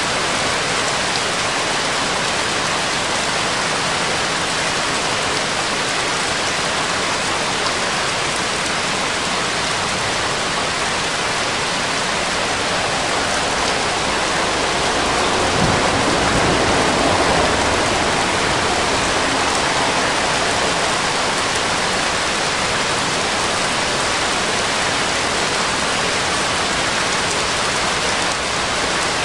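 Steady rushing noise like rain, the audible bed of a subliminal affirmation track, with the affirmations meant to sit below hearing under it. It swells briefly about halfway through, with a low rumble.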